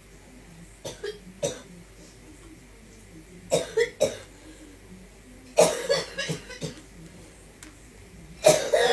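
A person coughing in short, sudden fits: a couple of light coughs about a second in, a cluster of coughs around three and a half seconds, another fit about halfway through, and the loudest cough near the end.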